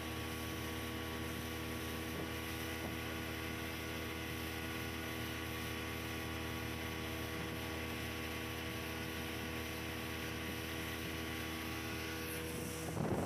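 A steady hum made of several constant tones, like a motor running at an unchanging speed. Just before the end it gives way to a louder rushing noise.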